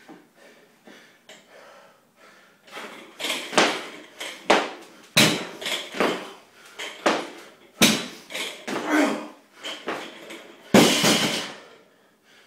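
Barbell loaded with bumper plates thudding and bouncing on the floor during repeated power cleans, about five hard impacts with the loudest near the end, with heavy breathing between them.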